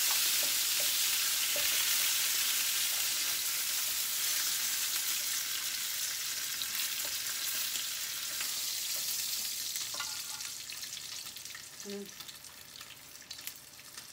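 Chicken pieces sizzling in a frying pan, the sizzle fading away over the last few seconds as the pieces are lifted out and the pan empties. A few light clicks sound along the way.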